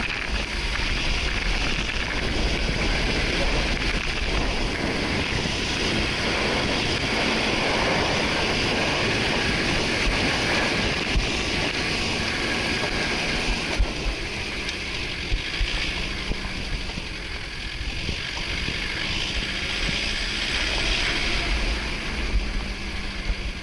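Off-road 4x4 driving over an unpaved track: steady engine and tyre noise with wind buffeting the microphone, and a few short sharp knocks partway through.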